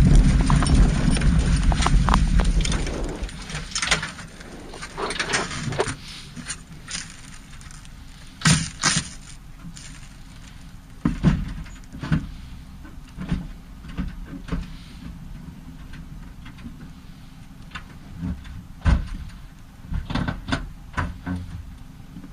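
Subaru Impreza rally car's engine and road noise dying away in the first three seconds as the car stops, leaving a low steady hum with scattered clicks, clunks and rattles as the crew unbuckle their racing harnesses.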